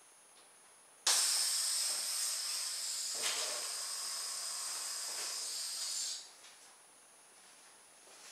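Air hissing out of an inflated balloon through narrowed drinking-straw jets on a homemade balloon-powered helicopter. The hiss starts suddenly about a second in and dies away after about five seconds as the balloon empties, with a single knock partway through.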